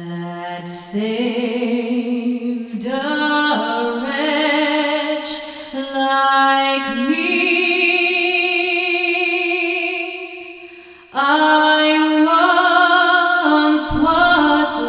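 Background music: a singing voice holding long, slow notes with vibrato, with little or no accompaniment. It fades about ten seconds in, then comes back louder a moment later.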